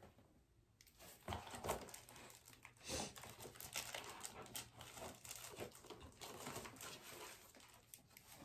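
Plastic wrapping crinkling and rustling as the wrapped plaque is handled and lifted from its box, starting about a second in as irregular faint crackles.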